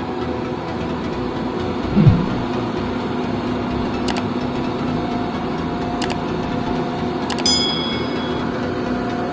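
A steady low drone, with a quick falling boom about two seconds in. Then three sharp mouse clicks and a short bell chime near the end, the sound effects of a like-and-subscribe button animation.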